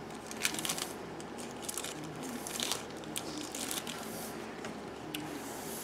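Small board-game cards being handled and looked through by hand: light rustling of card and packaging with a scattering of soft clicks.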